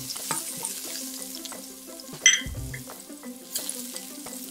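Sliced shiitake mushrooms sizzling in hot oil in a wok while a metal spatula stirs and scrapes them against the pan. A sharp ringing clink of the spatula on the wok comes about two seconds in.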